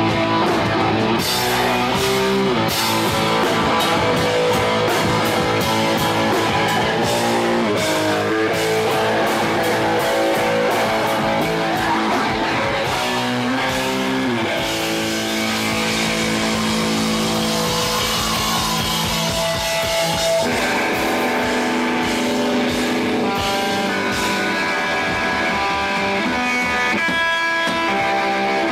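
Punk band playing live: electric guitar over drums. About twenty seconds in, the drums drop away and the guitar carries on nearly alone.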